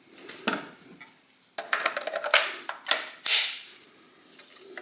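Hard plastic clicks, knocks and short scrapes from a cordless 18 V task light and its battery being handled, about half a dozen separate sounds.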